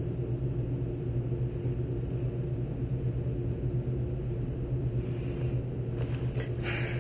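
A steady low hum of room noise, with a brief soft rustle about six seconds in.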